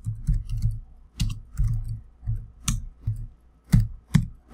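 Typing on a computer keyboard: an irregular run of key presses with dull low thumps, a few of them sharper, louder clacks.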